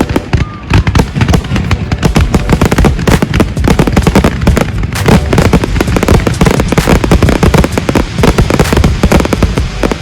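Fireworks display: a rapid, continuous barrage of loud bangs and crackles, many bursts a second, with a low rumble underneath.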